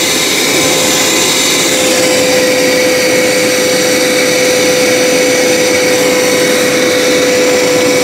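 Hoover PowerScrub XL Pet carpet cleaner running with its suction on, a steady drone with one constant tone over an even rushing hiss.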